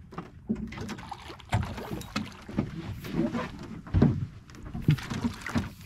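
Bull red drum splashing at the surface beside a boat, water sloshing and slapping against the hull in irregular splashes, the loudest about four and five seconds in.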